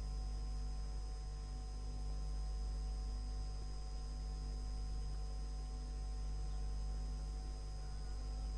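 Steady electrical mains hum with a faint hiss: the background noise of an old recording, with no voice.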